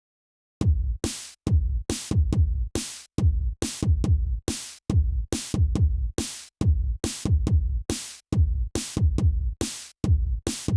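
Electronic drum-machine beat playing back: a steady run of deep kick hits layered with a bright cymbal-like top, about two a second, each hit cut off short.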